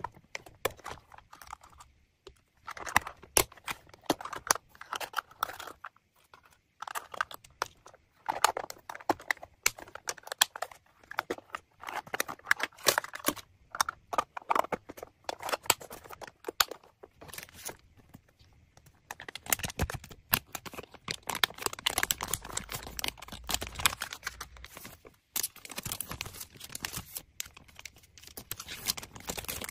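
Thin plastic packaging crinkling and rustling as small wrapped items are picked up and set down, with many irregular sharp clicks and taps.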